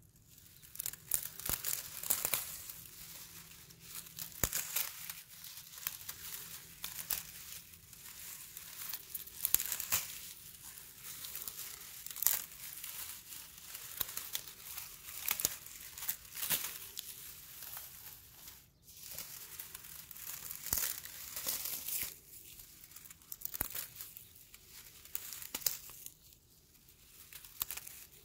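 Dry grass stems crackling and rustling as a hand rubs, grips and pulls through a tuft: an uneven run of sharp crackles and snaps.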